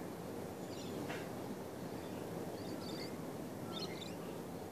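Outdoor ambience: a steady low rumble of background noise, with a few short bird chirps about one, three and four seconds in.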